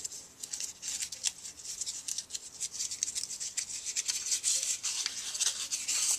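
Thin crumpled paper crinkling and rustling as a die-cut paper flower layer is pulled open and spread out by hand, in quick, irregular crackles.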